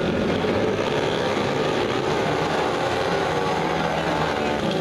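A pack of dirt-track racing motorcycles running at speed around the oval, several engines blending into one steady, loud drone with slight rises and falls in pitch.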